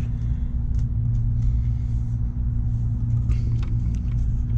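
A steady low hum runs throughout, with a few faint clicks and short soft hisses of small hand work over it.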